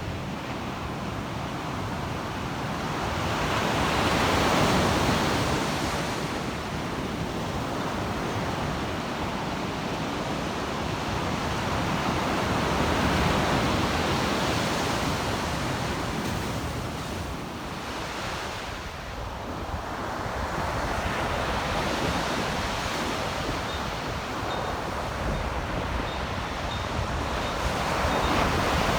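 Ocean surf washing onto the beach, swelling and fading in slow surges about every eight seconds.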